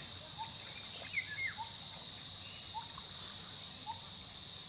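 Loud, steady, high-pitched drone of insects, with a short call repeating about once a second and a couple of brief chirps about a second in.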